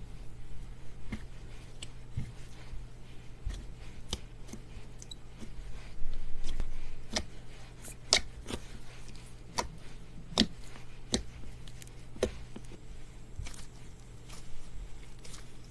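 Crunchy slime being pressed and squeezed by hand, giving irregular sharp crackles and pops with a louder run of crunching about six seconds in, over a steady low hum.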